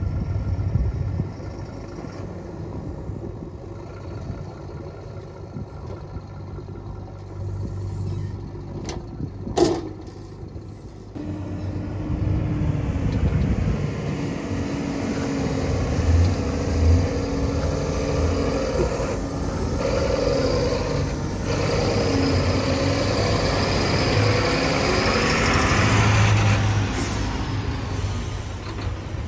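Heavy diesel engine running, with a single sharp knock about ten seconds in. The engine then revs up louder from about eleven seconds in.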